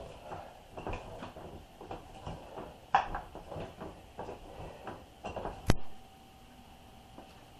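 Hand-cranked meat grinder being turned as beef chunks are forced through: a quick run of creaks and clicks, a few each second, from the crank and auger. A sharp knock just before the end, then the cranking stops.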